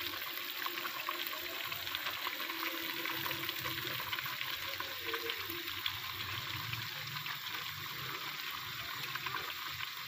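Adobo of small birds sizzling in a cooking pot on the stove: a steady hiss with fine crackles.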